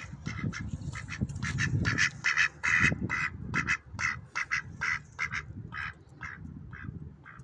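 A duck quacking in a rapid run of short calls, about three a second, loudest in the first half and thinning out near the end, over a low rumble.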